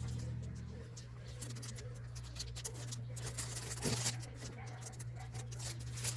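Unboxing handling noises: small clicks, taps and scratches over a low steady hum.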